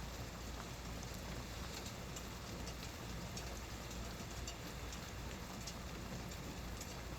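Steady rain falling, with many small sharp drop ticks pattering through an even hiss, over a steady low hum.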